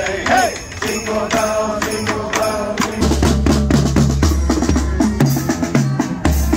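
Marching band playing as it passes close by. A tune on wind instruments comes first, then from about three seconds in the marching bass drums beat loudly.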